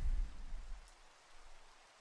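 Rain with a deep, low thunder rumble that fades out about a second in, leaving faint rain.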